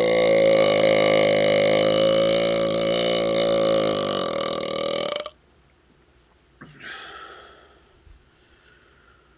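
A man's long, deep burp, gas from chugged orange Fanta. It holds a steady pitch and cuts off abruptly about five seconds in.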